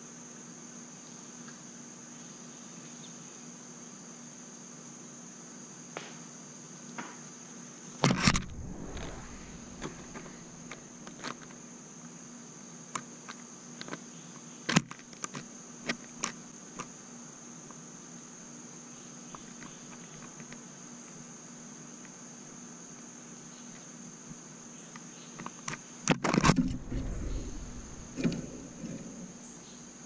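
Steady high-pitched drone of insects. It is broken twice by brief loud bumps and knocks, about a quarter of the way in and again near the end, with a few scattered clicks between.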